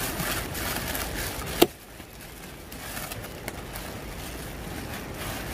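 Irregular rustling, then a single sharp knock about one and a half seconds in; after it only a faint steady background hiss.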